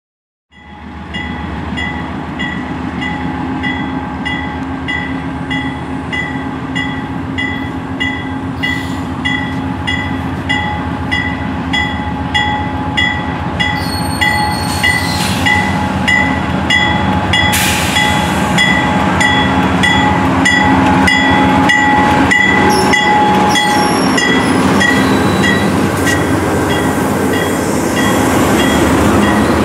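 Grade-crossing bell dinging about twice a second as a double-stack container freight train hauled by diesel locomotives approaches and passes. The locomotive engines' rumble and the wheels on the rails grow steadily louder.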